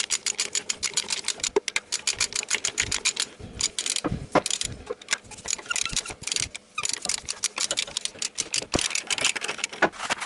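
Ratchet wrench with a 17 mm socket clicking rapidly as a nut is spun down onto an engine-mount bracket stud, with a couple of short pauses.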